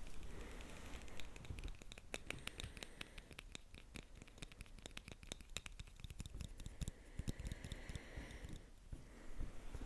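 Close-miked ASMR tapping and scratching: a dense, irregular run of light clicks and scratches, several a second.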